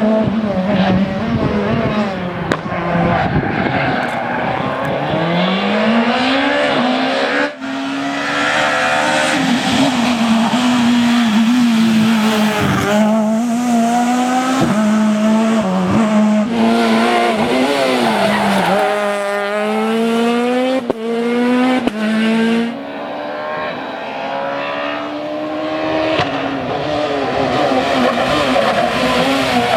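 Super 2000 rally cars' naturally aspirated four-cylinder engines revving hard, the pitch climbing and dropping with gear changes and lifts, with tyre squeal. The sound breaks off abruptly a few times as one car gives way to another.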